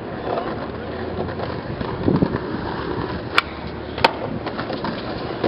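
Skateboard rolling on a concrete path, then two sharp cracks about two-thirds of a second apart: the tail pop and the landing of an ollie over a sand gap.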